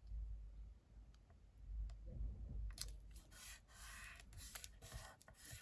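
Scissors cutting through paper, faint: a run of short snips in the second half, after some low bumps of handling the card.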